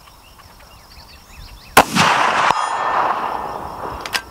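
A single shot from a Savage 110 BA rifle in .338 Lapua Magnum: one sharp crack about two seconds in, followed by a rolling echo that dies away over about two seconds. A short sharp click follows near the end.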